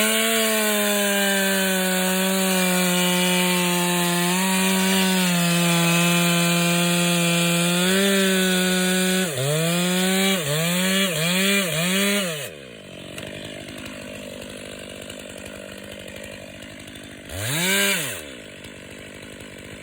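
Stihl 500i fuel-injected two-stroke chainsaw running at full throttle through wood, its pitch nearly steady with slight dips as the load changes. About nine seconds in it is revved four times in quick succession, then drops off, and it is blipped once more near the end.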